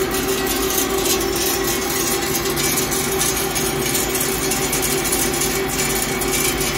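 Heavy-duty CNC lathe running steadily: a continuous machine noise with a few held hums, no breaks or impacts.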